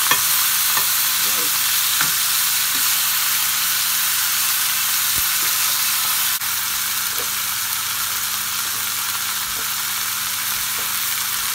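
Chicken pieces frying in hot fat in a stainless-steel skillet, sizzling steadily, with a few faint clicks.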